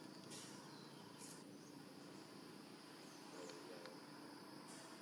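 Near silence: faint forest ambience with two brief high hissing rustles in the first second and a short, faint chirp about three and a half seconds in.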